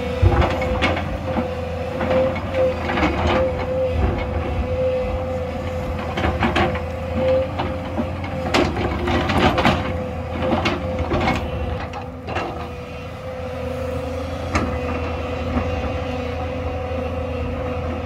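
JCB tracked excavator's diesel engine running steadily under load with a constant whine, while its bucket digs and scrapes into dry earth and rock on a hillside, giving repeated clanks and knocks, most of them bunched between about 8 and 12 seconds in.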